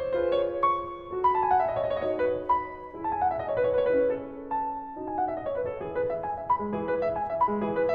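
Background piano music: repeated quick runs of notes falling in pitch.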